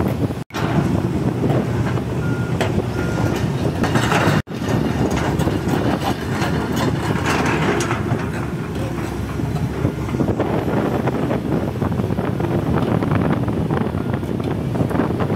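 A Komatsu tracked excavator's diesel engine running steadily, with the clatter of its machinery and tracks as it works and moves on the beach. The sound cuts out briefly twice, about half a second in and about four and a half seconds in.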